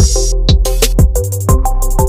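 Background music with an electronic drum beat: kick and hi-hat hits over sustained synth tones.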